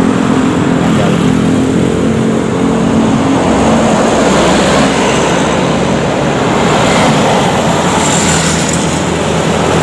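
Road traffic passing close by: cars and motorcycles driving past on a busy road. Over the first three seconds or so a steady engine note sits under the noise, then the rush of passing vehicles takes over.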